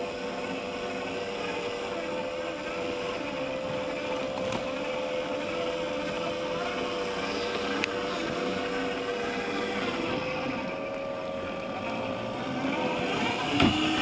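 Electric motors and gear drivetrains of 1:10-scale RC crawler trucks whining steadily as they crawl over forest ground and stumps, with a sharp knock near the end.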